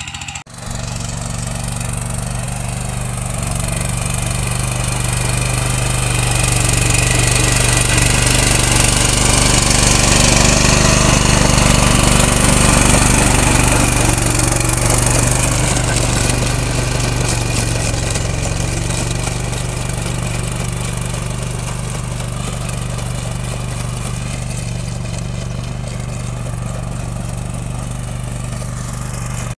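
Swaraj Code compact tractor's diesel engine running steadily under working load, growing somewhat louder toward the middle and easing off later.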